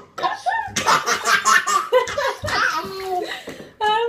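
A baby's belly laugh: a rapid run of breathy laughs, then after about two seconds shorter gliding squeals, with a long held squeal starting near the end.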